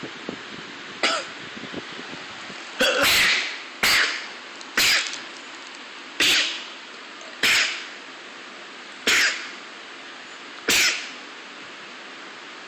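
A person sneezing over and over in a sneezing fit: about eight sharp sneezes, roughly a second to a second and a half apart, the first one smaller than the rest.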